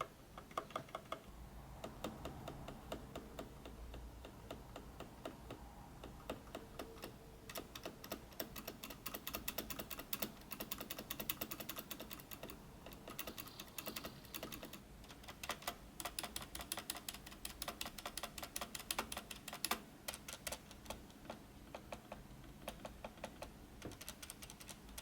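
Havit KB432L mechanical keyboard with Outemu Red linear switches being typed on: quick runs of plastic key clicks and clacks, with a few brief pauses.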